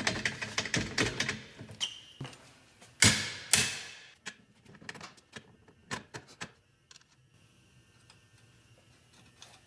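Metal tools and car parts clattering and knocking during hands-on work on the car's suspension and brakes: a quick run of clicks and knocks at first, two loud impacts about three seconds in, then a few lighter clicks that trail off.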